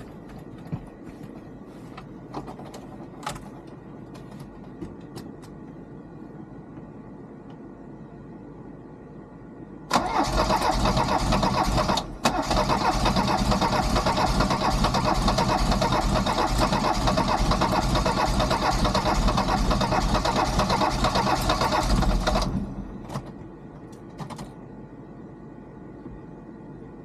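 Mercedes 207D's OM616 four-cylinder diesel engine being started: a loud mechanical run of about twelve seconds with a brief break a couple of seconds in, then it stops, with a few light clicks before and after.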